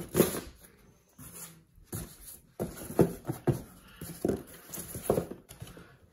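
Cardboard box and foam packing inserts rubbing and squeaking in a series of short bursts as a soundbar is pulled out of its packaging.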